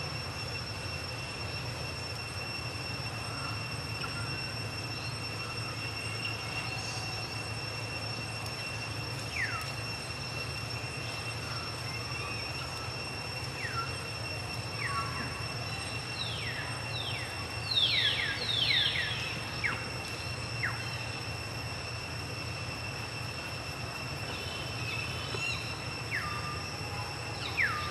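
Short high-pitched calls, each gliding quickly downward, heard singly at first, then several in quick succession about two-thirds of the way through and again near the end. Under them runs a steady high-pitched whine and a low hum.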